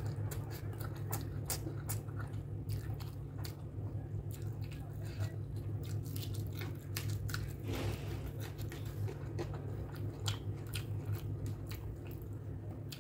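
Close-miked chewing of rice and pork curry eaten by hand: wet mouth smacks and many short crunchy clicks, with crunching bites of a raw green chilli. A steady low hum runs underneath.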